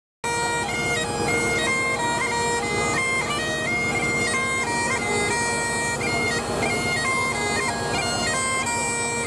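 Bagpipes playing a tune, the melody stepping between held notes over steady drones, starting just after a brief break in the sound.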